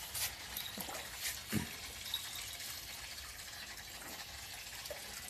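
Water splashing in a plastic tub as a puppy is washed by hand, with a few short splashes in the first two seconds over a steady hiss of water.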